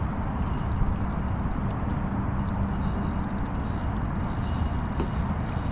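Wind buffeting the microphone: a steady low rumble, with faint light ticking above it.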